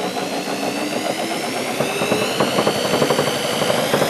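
Corded electric drill spinning a permanent magnet alternator by its pulley, the motor's whine rising in pitch as the speed builds.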